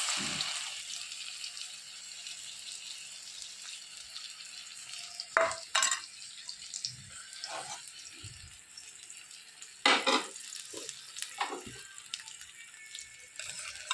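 Besan-battered bottle gourd slices sizzling in hot oil in an aluminium kadhai: loudest at the start as they go in, then settling to a steady hiss, with a few sharp clinks of a spoon against the pan.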